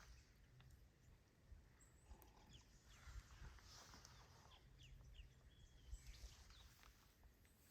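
Near silence: quiet bush ambience with a few faint, short bird chirps and some soft low thumps.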